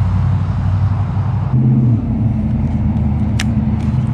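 A steady low motor rumble that shifts suddenly in pitch about a second and a half in, with a single sharp click near the end.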